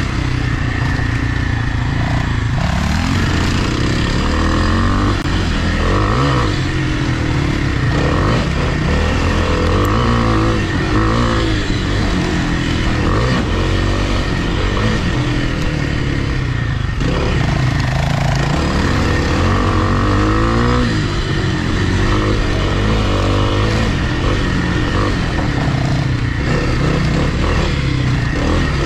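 Dirt bike's single-cylinder four-stroke engine being ridden hard, its revs rising and falling every second or two as the throttle is worked on and off.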